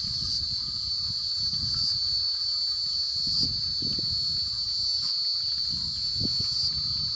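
Steady, high-pitched chorus of night insects such as crickets, with a low, uneven rumbling noise underneath.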